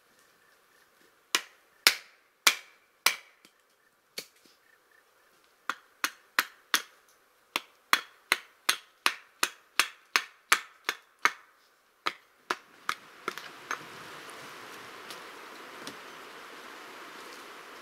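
Axe chopping into a log: a string of sharp, separate knocks, first slow, then quicker at about two to three strokes a second. About thirteen seconds in, the chopping stops and a steady hiss takes over.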